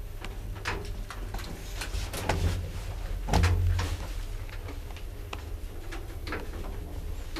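Handling noise on a handheld camera: scattered clicks and knocks over a low rumble, with a louder bump a little over three seconds in.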